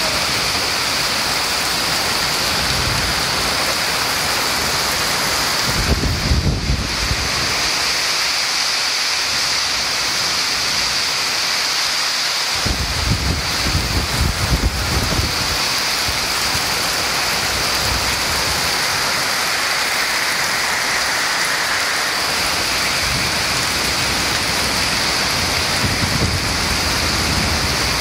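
Heavy wind-driven rain in a violent storm, a loud steady hiss, with gusts of wind surging and buffeting about six seconds in, again around thirteen to fifteen seconds in, and once more near the end.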